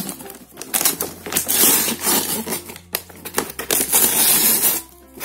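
Paper wrapping being torn and crumpled by hand off a cardboard multi-shot firework box. It comes as a run of loud rips and rustles with brief pauses, and stops shortly before the end.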